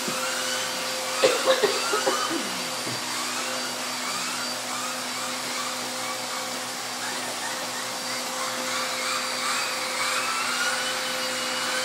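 Upright vacuum cleaner running steadily through its hose attachment, with a steady motor whine under the rush of air. A few sharp knocks come between one and two seconds in.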